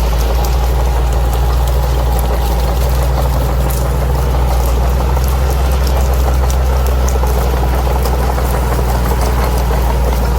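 Bulldozer's diesel engine running at a steady pitch, with light scattered clicks over it.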